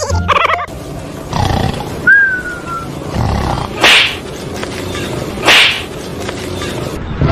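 Two short, loud, harsh animal roars about a second and a half apart, after a brief high, falling whine.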